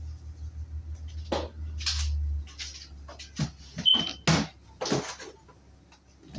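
Kitchen handling sounds: rustles and light knocks from containers and the work surface, over a low hum that stops about two and a half seconds in. A single short high beep sounds about halfway through.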